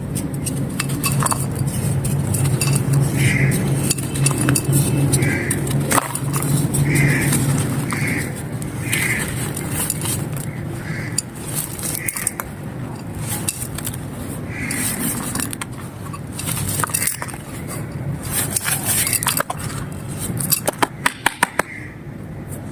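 Dry clay pot pieces being crumbled and crushed, a dense crackling full of sharp clicks, with a quick run of louder clicks near the end. A faint short tone recurs about once a second, and a low hum runs under the first third.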